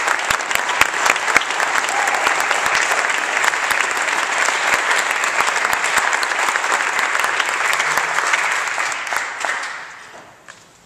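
Audience applauding in a concert hall, dying away about ten seconds in.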